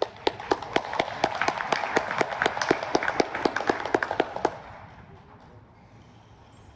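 Audience applauding, with one nearby person's claps standing out at about four a second; the applause stops about four and a half seconds in.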